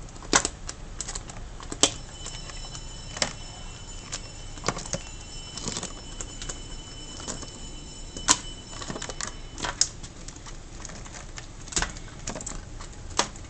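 Raw crab pieces dropped into a wok of boiling chilli sauce and moved about with a spatula: irregular sharp clicks and knocks of shell and utensil against the pan.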